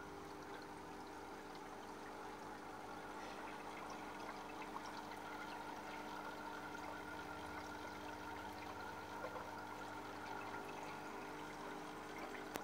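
Aquarium filter running: water trickling and splashing steadily, over a low steady hum from the pump.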